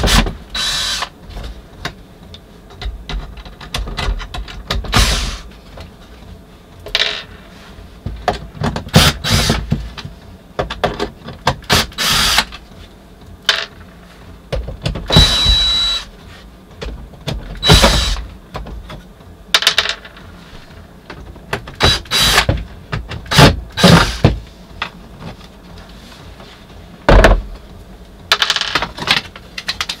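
Cordless drill run in repeated short bursts at a wooden cabinet, mixed with knocks and clatter of thin wooden slats being worked loose.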